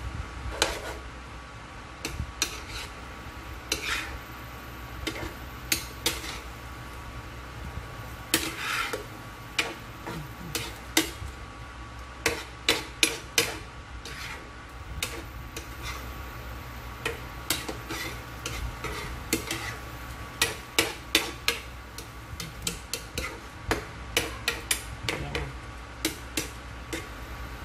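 Metal spoon stirring meatballs in thick sweet and sour sauce in a nonstick frying pan, clinking and scraping against the pan in irregular sharp knocks, with runs of quick taps about halfway through.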